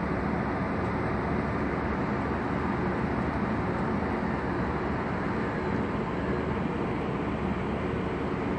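Steady rumble of road traffic, an even wash of noise with no single event standing out.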